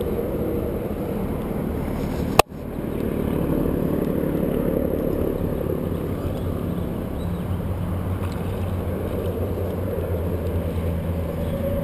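Steady low rumble of wind and handling noise on a body-worn action camera's microphone, with one sharp click about two and a half seconds in.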